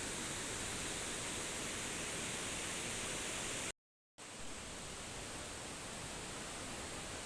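Steady rushing noise of a waterfall. It cuts out completely for about half a second halfway through, then comes back a little quieter.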